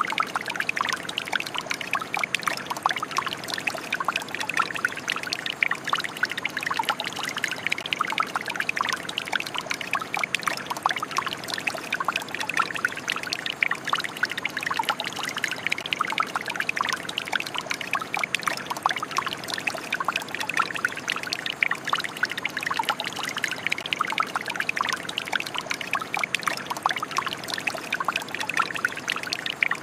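Shower running: water spraying and splashing down steadily in a dense patter of droplets.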